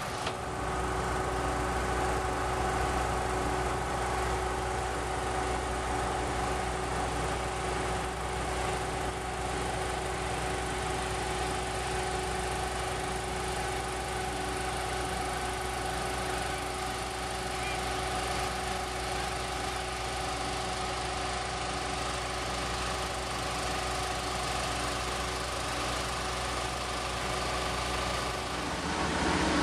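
Fire truck engines idling steadily: a constant drone and low rumble with a steady hum on top.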